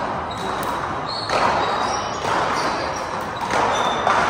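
Handball rally: a small rubber handball is slapped by hand and smacks off the wall several times, each hit echoing in the hall, with sneakers squeaking briefly on the court floor.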